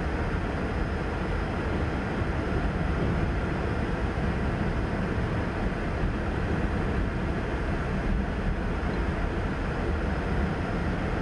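Freight train of covered hopper cars rolling past, a steady rumble of steel wheels on rail, heard from inside a car.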